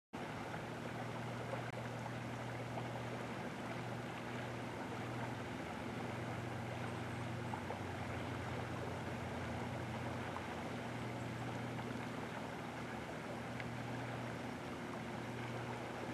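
Steady rushing of flowing river water, with a steady low hum underneath.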